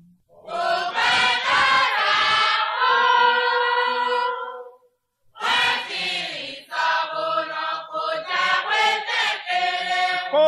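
Several voices singing together in chorus, with a short break about five seconds in before the singing resumes.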